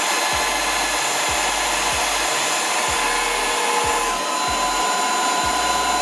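ORFELD H01 cordless stick vacuum with a 200 W brushless motor running in turbo mode: a steady rush of air under a high motor whine. About four seconds in, the whine's tones shift slightly.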